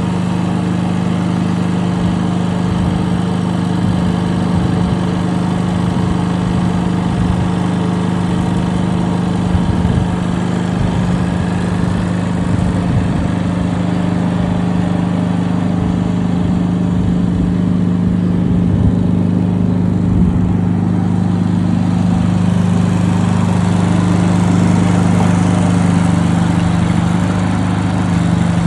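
Diesel engine of a Multitel SMX250 tracked spider access platform running steadily while the machine tracks and sets its outriggers, a little louder in the second half.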